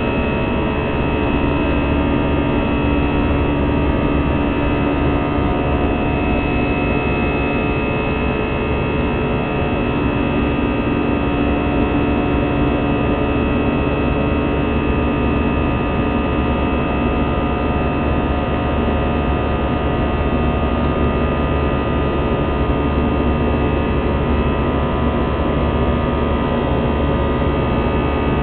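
Airbus A320 jet engines at climb power after takeoff, heard inside the cabin beside the wing: a steady drone with several steady whining tones laid over it.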